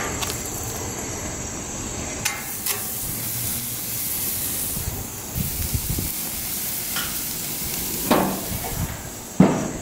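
Seasoned chicken breasts sizzling on a hot grill, a steady hiss, with a few short knocks about two seconds in and again near the end.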